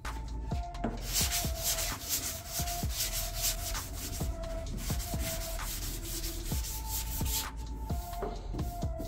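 Hand sanding block scrubbing back and forth over primer on a car's rear quarter panel in quick repeated strokes, block-sanding the primer to check that the bodywork is straight. The strokes stop about a second and a half before the end.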